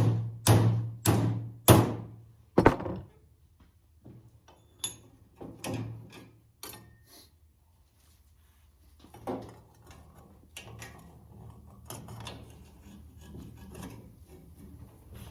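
Hammer blows ringing on a steel anvil, close to two strikes a second, stopping about two and a half seconds in. Softer scattered knocks and clunks follow.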